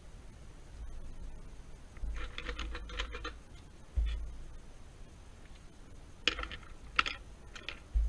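Wooden pencils clicking and tapping as they are handled and swapped in the fingers: a quick rattle of small clicks about two seconds in, then a few single sharp taps near the end, with dull bumps against the desk about halfway and at the very end.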